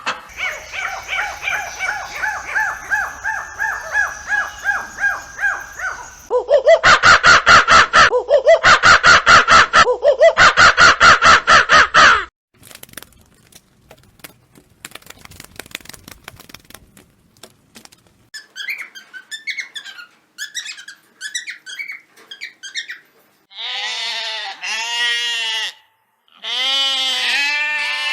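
A series of different animal calls. First come repeated pitched calls, then about six seconds of loud, rapid squawking calls, a quiet stretch of faint clicks, and some short chirps. Near the end come two long, quavering sheep bleats.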